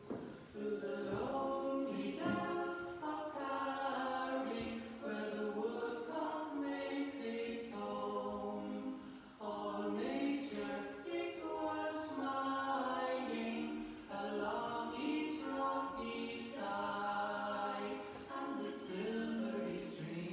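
Choir singing unaccompanied, in long phrases with brief pauses between them.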